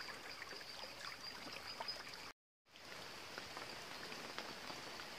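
Shallow rocky stream running with light rain falling: a faint steady hiss of water with scattered soft drip ticks. The sound drops out to silence for a moment about halfway through.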